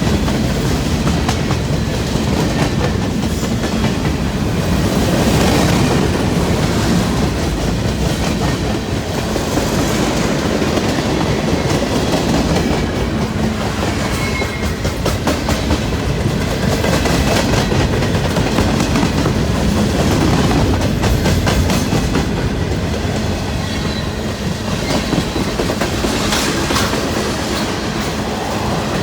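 A long freight train's cars rolling past on the rails: a steady, loud rumble with the clickety-clack of wheels over rail joints.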